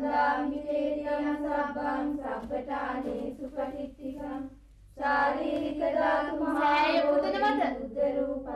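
A high female voice singing a slow melody in long held notes, breaking off briefly about halfway through.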